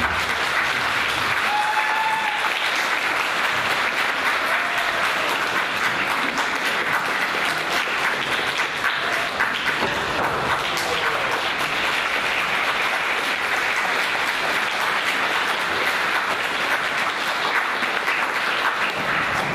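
Audience applauding: steady, dense clapping that is kept up for the whole stretch.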